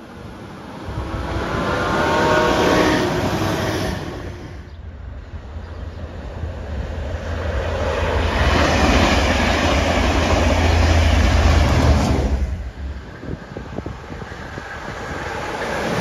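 Three trains passing in turn, with abrupt cuts between them. A Class 197 diesel multiple unit passes in the first few seconds. Then a Class 67 diesel locomotive, a two-stroke V12, hauls coaches past with a heavy low engine rumble that is loudest about eleven seconds in. Near the end another Class 197 unit starts to pass close by.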